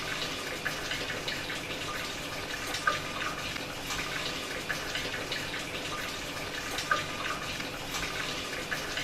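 Water running steadily into a Whirlpool fully automatic washing machine's tub, with a few faint splashes: the fill stage of the machine's auto-diagnostic test cycle.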